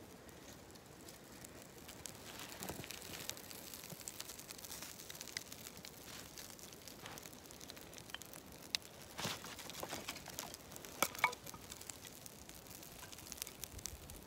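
Small kindling fire catching and crackling, with scattered snaps and a few louder sharp clicks in the second half.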